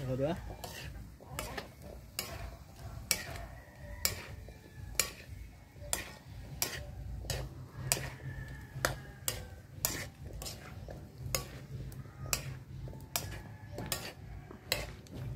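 Metal spatula scraping and knocking against a steel wok in a steady rhythm, about two strokes a second, while pieces of food fry and sizzle in the pan.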